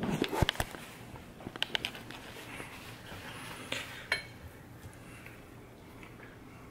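A few light clinks and taps of a plate and tableware being handled at a dining table, bunched in the first two seconds with a couple more around four seconds in.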